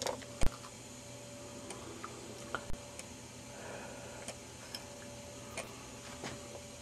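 Faint room tone with a faint steady hum and a few light clicks, the sharpest about half a second in.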